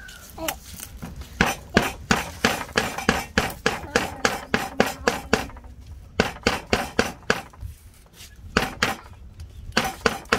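Stone pestle pounding fresh green leaves on a round wooden block, crushing them: quick thuds about four a second, in runs broken by two short pauses in the second half.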